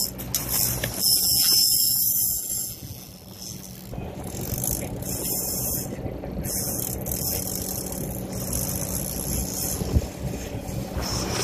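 Charter boat's engine running steadily, with water hissing and splashing alongside, loudest about one to two seconds in.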